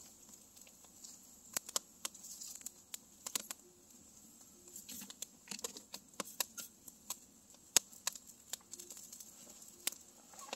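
Wood campfire crackling, with irregular sharp snaps and pops and one louder pop about eight seconds in.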